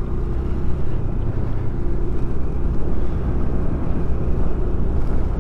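Steady wind rushing over the microphone of a moving scooter, with the scooter's small engine and tyres running underneath.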